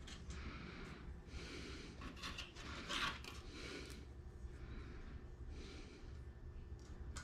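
Quiet hand-handling of an aluminium hinge strip fitted with blind hole spotters: soft rubbing and small clicks as it is held and fitted, with a louder rub about three seconds in.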